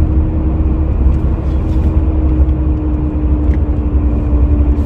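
Steady low rumble of a pickup truck driving slowly on a snow-covered road, heard from inside the cab, with a steady hum running underneath.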